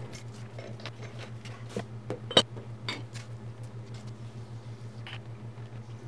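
Scattered metal clinks and clicks as the parts of a disassembled three-jaw lathe chuck are handled and dropped into a plastic tub, the sharpest about two and a half seconds in. A steady low hum runs underneath.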